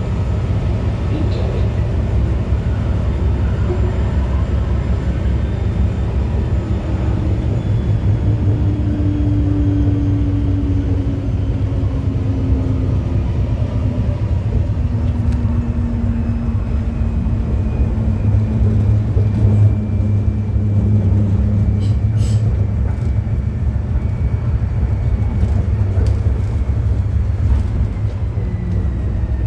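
Forchbahn metre-gauge railcar running on the track, heard from the driver's cab: a steady low rumble of wheels on rail with a motor whine that slowly falls in pitch, and a few sharp clicks in the second half.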